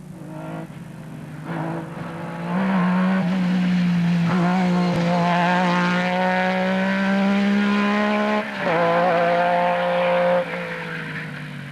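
Metro 6R4 rally car's 3-litre V6 engine held at high revs, building from quieter in the first couple of seconds to a steady full note. It breaks briefly about three-quarters through, comes back, then drops away near the end.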